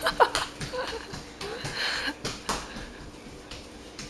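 A toddler's small running footsteps on a hardwood floor: quick, uneven slaps and knocks that fade after about two and a half seconds, with a brief squeal from the child at the start.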